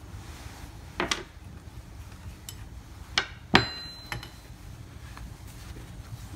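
Sharp metallic clinks of steel spanners against the aluminium TM KZ kart engine while its cylinder base nuts are being undone: one about a second in, and two close together just after three seconds, the second of these the loudest, with a few fainter ticks after.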